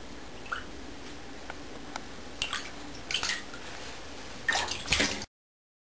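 Savannah cat's paws splashing in shallow water in a bathtub: a few short, scattered splashes, the loudest cluster near the end, then the sound cuts off suddenly.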